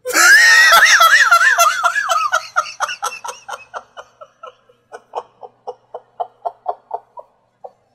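A man laughing hard. It starts as a loud, high, wavering laugh that slides down in pitch, then breaks into a run of short pulses of laughter, about three a second, that fade away.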